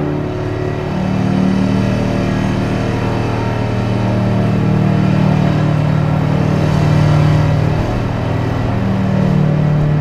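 Heavy diesel construction machinery running steadily, a loud, low engine drone that shifts a little in pitch and swells slightly. It comes from the tracked foundation piling rigs working on the site.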